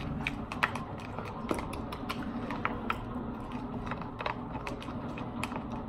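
Slime being worked, with small, sharp clicks and pops coming at an irregular pace over a steady low hum.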